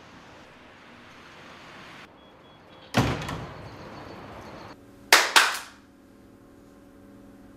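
A wooden door banging: one heavy thud about three seconds in that rings on for over a second, then two sharp bangs in quick succession about two seconds later. A steady hiss comes before the thud.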